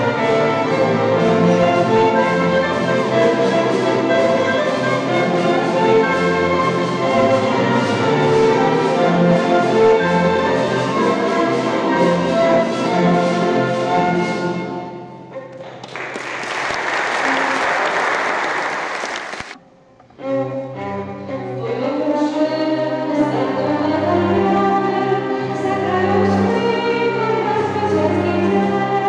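Live ensemble music with bowed strings and singing, dying away about halfway through. A few seconds of applause follow and cut off abruptly, then the ensemble starts up again.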